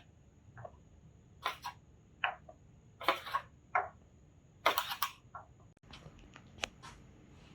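Handling noise from a set of wood carving chisels and their packaging being picked up and moved. It comes as a string of short rustles, scrapes and clicks, the loudest about three and a half seconds in.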